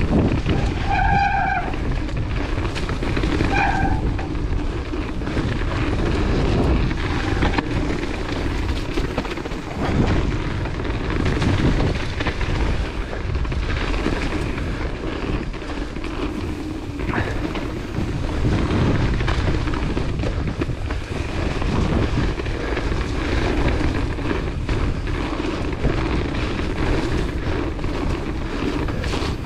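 Mountain bike speeding down a wet dirt forest trail: steady wind rush on the camera microphone over the rumble of the tyres on the dirt. Two short high-pitched tones come about a second and about four seconds in.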